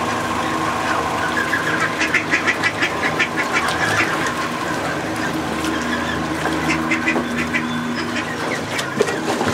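Young mallard ducks and Canada geese calling: two runs of quick short quacking calls, one about two seconds in and one about seven seconds in, over a steady low hum.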